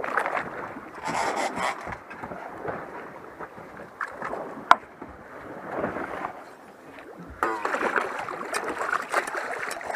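Water sloshing and splashing against the side of a boat as a hooked blue shark thrashes at the surface, louder for the last couple of seconds, with a single sharp click about halfway through.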